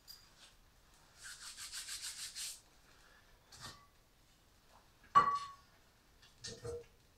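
A rapid rasping rub, about eight strokes a second for a second and a half, then a click and sharp metal clanks with a short ring as cookware is handled on a wood-burning cookstove; the loudest clank comes about five seconds in.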